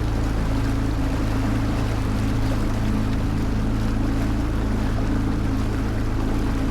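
Motorboat engine running at a steady cruise, a low even hum, with the rush of water and air over it as the boat moves along the river.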